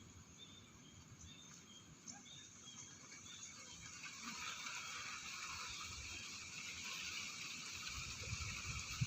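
Faint outdoor ambience: a series of short, high chirps repeating about twice a second, then a soft hiss that swells from about four seconds in.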